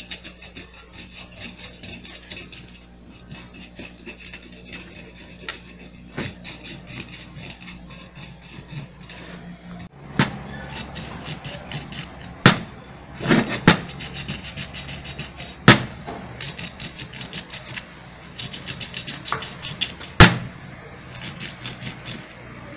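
Sandpaper rubbing rust off a metal part of an orange juicer by hand: quick, rhythmic rubbing strokes. A few sharp knocks come in the second half.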